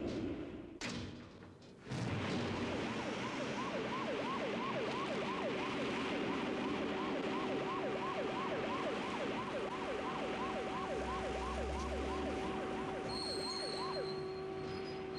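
Alarm siren sounding in quick rising-and-falling sweeps, about two a second, over a steady hum; it stops near the end. Before it starts, music breaks off with two sharp clicks.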